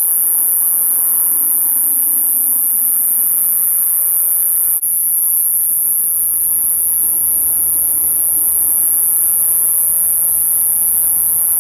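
Conehead katydid (Euconocephalus thunbergi, kubikirigisu) singing: a continuous, very high-pitched buzz that breaks off for an instant about five seconds in and then carries on.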